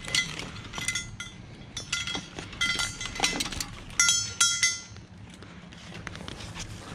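Metal harness fittings (D-rings and clips on the rebreather harness webbing) clinking and ringing as the harness and counterlung are handled. The clinks come in several quick clusters, and the loudest is about four seconds in.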